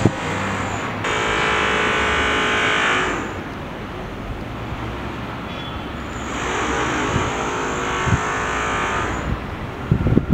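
City street traffic: a steady rumble with two vehicles passing, the first about a second in and the second a few seconds later, each with a rising and fading whine.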